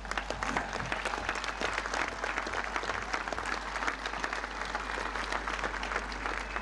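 Large outdoor crowd applauding steadily, a dense wash of many hands clapping, with no voices above it.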